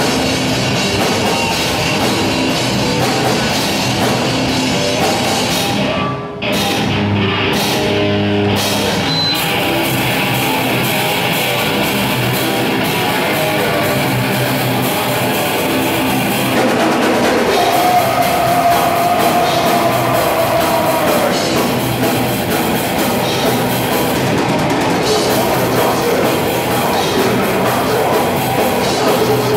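A live heavy rock band playing loud: a drum kit pounding under guitars. The band stops for a moment about six seconds in, then comes straight back in.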